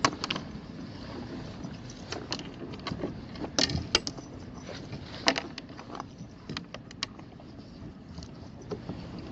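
Irregular clicks and knocks of gear being handled around a kayak, a dozen or so sharp taps scattered over a faint steady background hiss.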